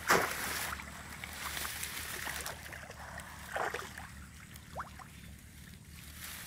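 Shallow pond water splashing as a person wading knee-deep scoops and churns it with their hands while fishing by hand. There is a loud splash right at the start and another, smaller one about three and a half seconds in, with lighter sloshing between.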